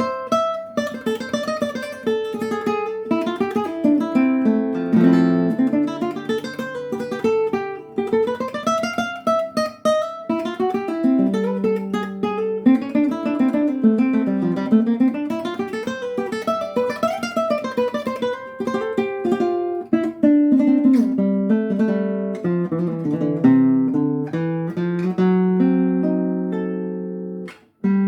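A solo requinto guitar playing quick picked melodic runs that climb and fall over lower bass notes. The music breaks off briefly just before the end, then carries on.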